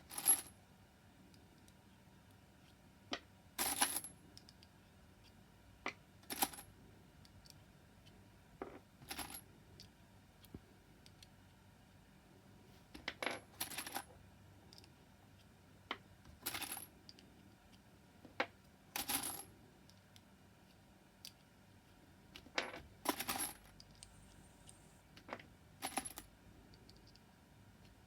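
Fired 9mm brass cases clinking with a sharp, high metallic ring, one or a few at a time every two to three seconds, as they are pushed through a bulge-buster resizing die to iron out the bulge left by a Glock chamber.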